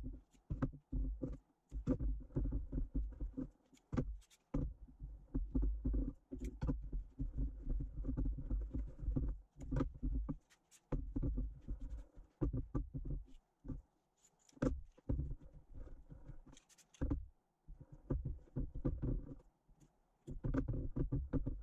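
Carbon fibre cloth being pressed and smoothed by hand into a mould on a workbench: irregular bursts of dull rubbing and handling noise, broken by short sharp clicks and knocks.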